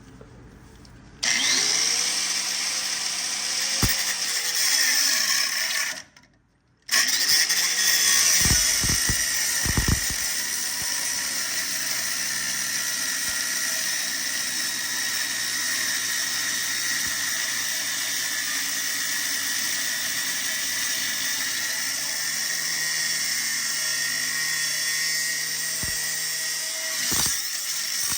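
Cutoff wheel cutting through the head of a hardened Grade 8 bolt: it starts about a second in, stops for a moment around six seconds, then cuts steadily again.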